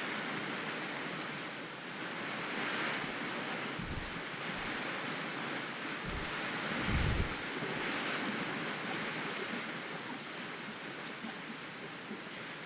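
Steady hiss of rain falling, with a few brief low rumbles about four and seven seconds in.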